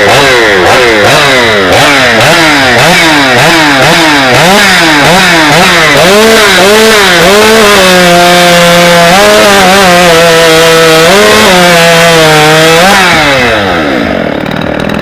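Stock-class two-stroke competition chainsaw running flat out, very loud, sawing through wood. For the first half its pitch keeps dipping and recovering about once a second; it then holds high and steady and drops away near the end as it is throttled off.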